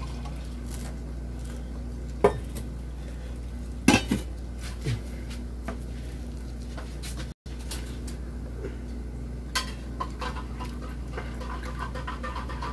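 Kitchenware clinking and knocking: a few sharp knocks of pots and utensils, then a run of light scraping and rattling near the end, over a steady low hum.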